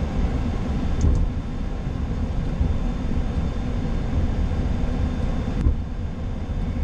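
Cockpit noise of a Boeing 737-800 taxiing: a steady low rumble from the CFM56 engines at idle and the airframe rolling, with a faint steady hum. A light click comes about a second in, and the higher hiss drops away suddenly near the end.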